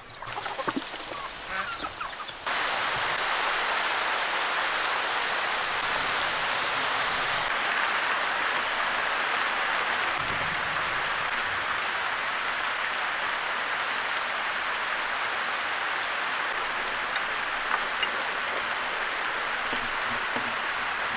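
Domestic waterfowl calling briefly, then an abrupt switch about two and a half seconds in to a steady, even hissing rush that holds to the end.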